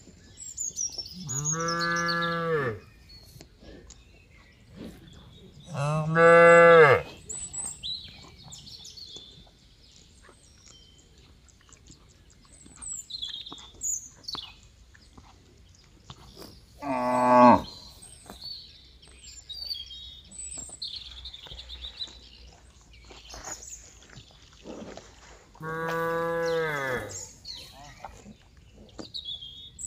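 Cattle mooing four times: three long, steady moos and a shorter one about halfway through that falls in pitch at the end.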